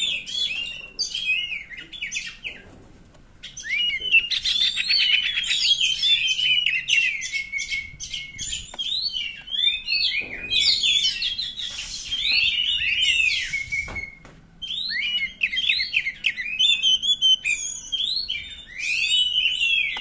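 Oriental magpie-robin (kacer) singing an agitated, fast song of varied whistles, chirps and rapid trills, with a pause about two seconds in and a short break near the end of the first two-thirds.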